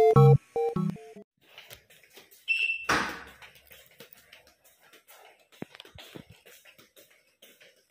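A short, high electronic beep about two and a half seconds in, followed by a brief rush of noise, then faint scattered footsteps and clicks as a door is passed through into a small hallway.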